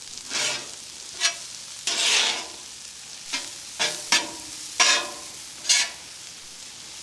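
Corn kernels sizzling on a hot Traeger Flatrock flat-top griddle while a metal spatula scrapes across the griddle top and tosses them to char. About eight short scrapes over a steady sizzle, one near two seconds in longer than the others.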